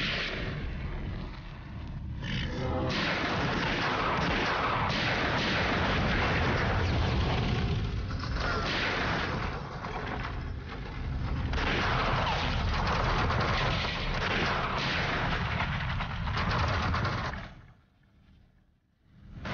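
Rifle shots fired again and again over a steady low rumble. The sound drops almost to silence near the end.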